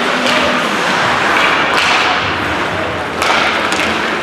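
A few sharp thumps, one about every second and a half, over a steady loud background noise.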